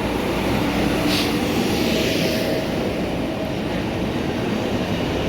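Train in the station running with a steady rumble and a faint hum, with a brief hiss about a second in.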